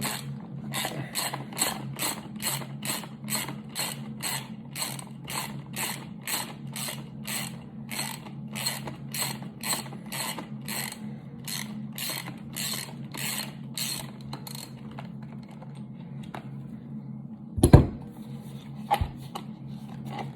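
Socket ratchet clicking in a steady run of strokes, about two and a half a second, as it backs the lock nut out of the shotgun's buttstock; the ratcheting stops about three quarters of the way through. Near the end come a loud knock and then a lighter one.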